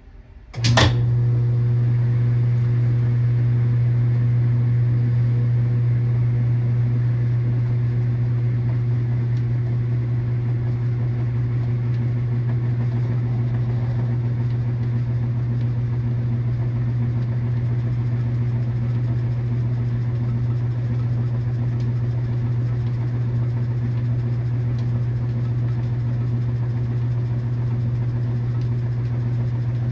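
KitchenAid washing machine's motor switching on with a click and then running with a loud, steady hum.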